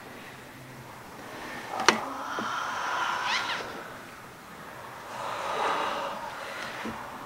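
People breathing hard and gasping nearby, in two long breathy swells. A single sharp click comes just before two seconds in.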